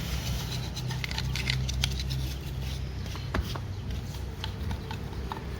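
Hand tool scraping carbon deposits off a metal engine part: irregular short scratches and clicks over a steady low hum.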